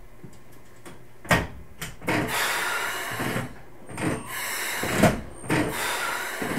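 Keikyu New 1000 series electric train standing at the platform before departure: a sharp clunk about a second in, then several bursts of hissing air broken by knocks, sounds of the doors and air equipment.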